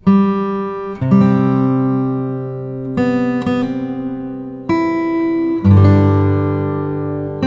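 Music: an acoustic guitar strumming slow, ringing chords, a new chord every second or two, each left to fade.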